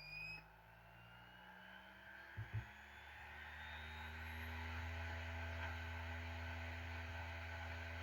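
Optical disc drive whirring as it spins up, after two soft clicks, its low hum slowly growing louder.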